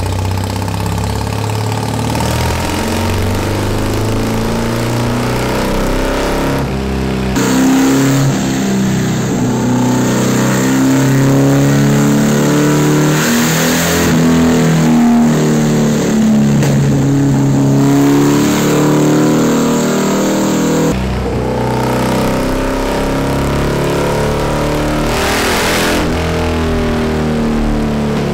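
Ural Wolf motorcycle's modified air-cooled flat-twin engine revving hard under load on a chassis dynamometer, the rear wheel driving the roller, with the engine note rising and falling.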